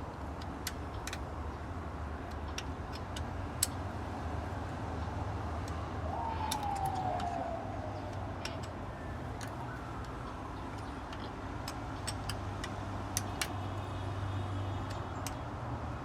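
Irregular light clicks and taps of bolts and hand tools being handled on a ZF 8HP automatic transmission, over a steady low hum. About six seconds in, a tone falls in pitch over about two seconds, and a fainter falling tone follows a few seconds later.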